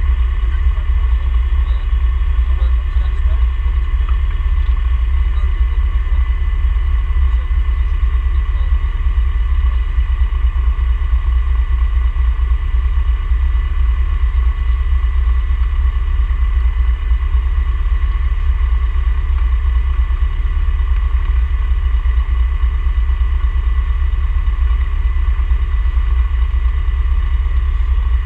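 Ginetta G20 race car's engine running at a steady, unchanging pitch over a heavy low rumble.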